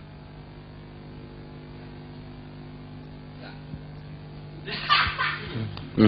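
Quiet room tone with a steady hum; about five seconds in, a short burst of laughter.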